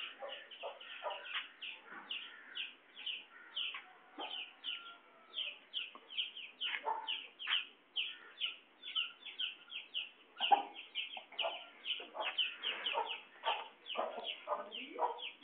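Birds calling: a steady run of short, high chirps, about three or four a second, with lower, louder calls scattered among them.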